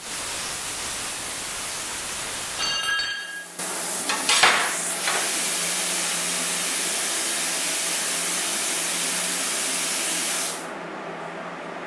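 Angle grinder grinding a steel plate for the first few seconds, then a brief whine as it winds down. A loud, steady hiss follows for about seven seconds and cuts off sharply near the end.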